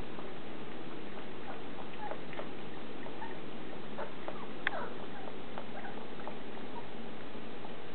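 Six-week-old Shetland sheepdog puppies giving faint, scattered high squeaks and whines, the sharpest about halfway through, over a steady background hiss.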